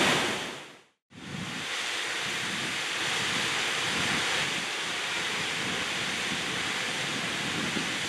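Steady rush of a waterfall plunging into a pool. About a second in it fades out to a brief silence, then the rush of a second waterfall comes in and holds steady.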